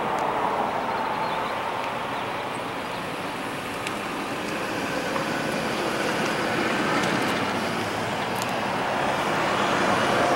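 International DT466 diesel engine idling steadily, getting slightly louder near the end.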